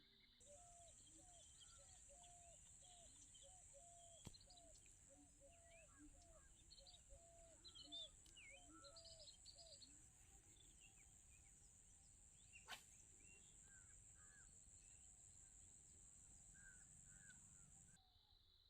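Faint rural outdoor ambience: a steady high-pitched drone, with a run of short calls repeated about twice a second through the first half and scattered bird chirps.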